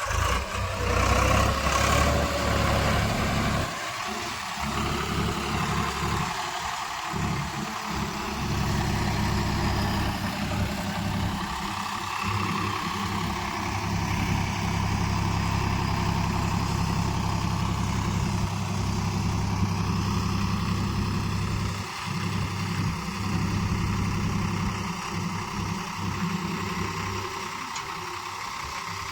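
Heavy diesel machinery engine running, loudest over the first few seconds and then steadier, its level dropping and picking up again several times as the load changes.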